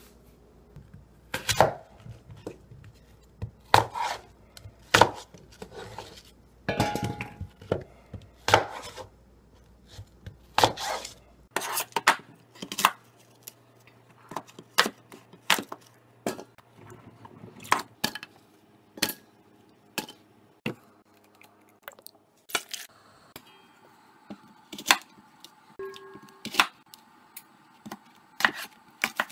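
A large kitchen knife cutting through apples and knocking down onto a white plastic cutting board: sharp, irregular chops, roughly one a second, as the apples are quartered.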